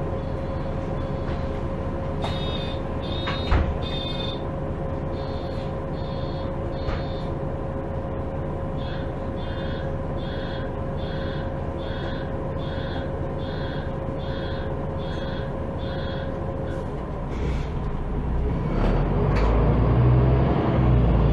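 Passenger compartment of a MAN Lion's City G articulated city bus standing at a stop: the door warning beeper sounds repeatedly, about two short beeps a second, over a steady hum, with one knock early on. Near the end the beeping stops and the engine picks up as the bus pulls away, the rumble growing louder.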